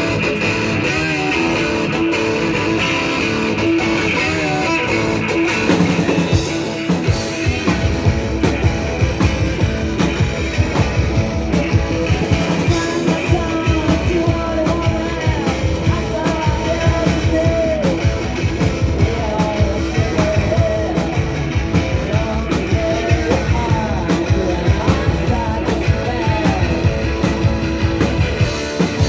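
Garage punk band playing live on guitars, bass and drums. Held, ringing chords open the piece, then the drums come in with a fast, steady beat about six seconds in and the full band plays on.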